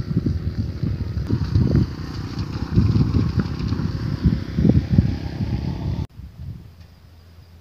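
Wind buffeting the microphone in gusts, with a motorcycle riding past the tree under it. The sound cuts off suddenly about six seconds in.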